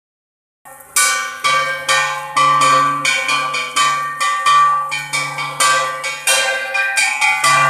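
Bells struck in a steady rhythm, about two strikes a second, each ringing and fading before the next, the pitch shifting from strike to strike; it begins about half a second in.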